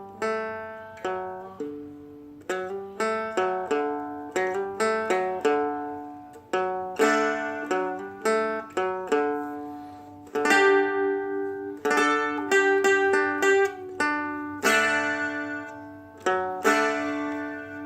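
Seagull Merlin M4, a four-string steel-strung dulcimer-style instrument, played unaccompanied. A chord riff of strummed chords and single plucked notes, each left to ring out.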